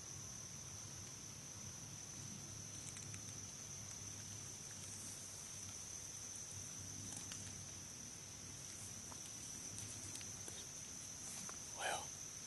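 Steady chorus of crickets, one continuous high-pitched trill that doesn't let up. A short soft sound comes near the end.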